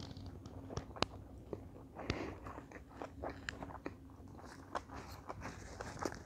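Close-miked chewing of a mouthful of sushi roll, with irregular wet mouth clicks and smacks. Near the end, a paper napkin rustles.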